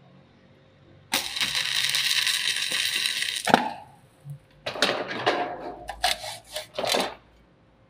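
A stick-welding arc crackles and hisses evenly for about two and a half seconds as the electrode burns a hole through thick steel plate, then cuts off abruptly. A few irregular knocks and clattering scrapes follow.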